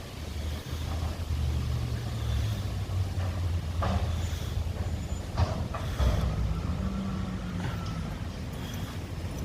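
Garbage truck's diesel engine running, its pitch rising a little past the middle, with several sharp metallic clanks about four to six seconds in.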